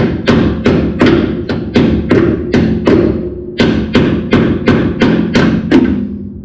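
Rapid, even hammer taps, about three a second, each with a short metallic ring, driving a tight-fitting brake part into place. They stop about a second before the end.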